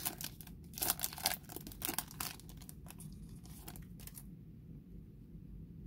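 Foil trading-card pack wrapper being torn open and crinkled: a run of crackling rustles that stops about four seconds in.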